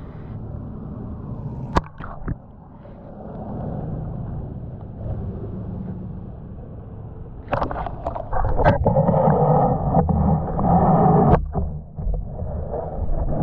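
Water sloshing and gurgling around a camera as it is lowered into a shallow pond, with a few sharp knocks from handling; about halfway through it grows louder for a few seconds, then settles into the muffled low rumble heard with the camera underwater.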